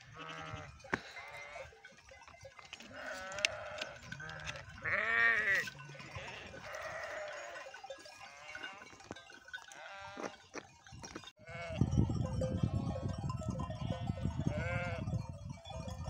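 A flock of sheep bleating, many calls overlapping one another, the loudest about five seconds in. From about twelve seconds in a low rumble sits under the bleats.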